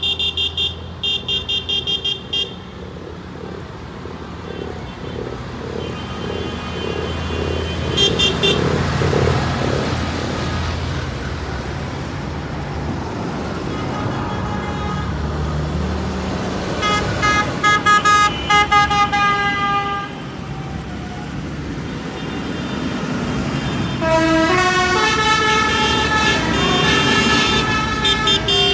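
A procession of tractors passing with engines running, and their horns tooting in quick repeated bursts several times. Near the end a run of notes at changing pitches sounds over the engines, like a tune played on a horn.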